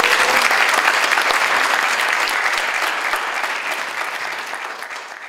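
Audience applauding, the clapping gradually fading toward the end.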